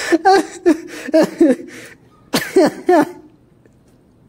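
A young man coughing in two short fits, several hacking bursts each, choking on a bite of sandwich whose dry seasoning burns.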